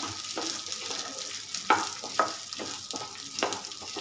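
Split urad dal and moong dal being stirred with a spatula in a black pan as they roast in a little oil: a steady light sizzle and rattle of the lentils. A few sharper scrapes of the spatula against the pan come through, the loudest about halfway in.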